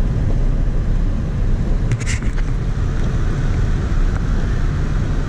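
Road and engine noise inside the cabin of a moving Nissan Almera N16: a steady low rumble, with a short click about two seconds in.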